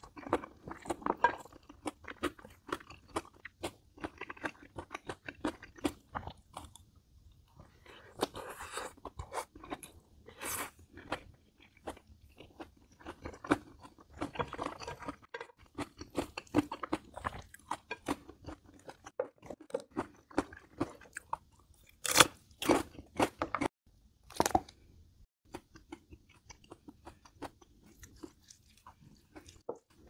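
A person eating: chewing and crunching food in uneven bursts of small crackling clicks, with a few sharper, louder bites about two-thirds of the way through.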